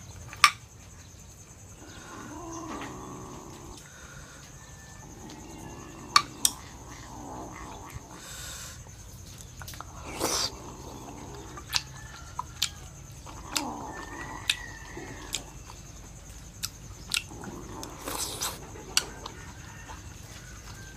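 Eating balut with a metal spoon: sharp, irregular clinks of the spoon against a glass sauce bowl and metal tray, between softer wet mouth sounds of chewing and slurping.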